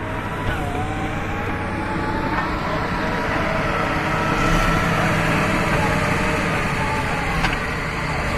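Bulldozer's diesel engine running steadily, with whining tones above it and a single sharp knock near the end.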